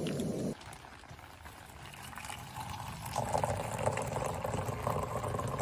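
A gas camp-stove burner rushing cuts off about half a second in. From about three seconds, water is poured from a kettle into a metal mug, a steady splashing fill.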